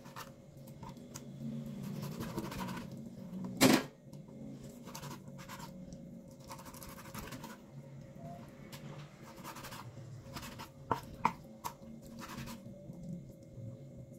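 Kitchen knife slicing raw boneless chicken thigh into cubes on a wooden cutting board: soft scraping and cutting strokes of the blade through the meat and across the board. One louder knock comes a few seconds in, and a couple of light taps come later.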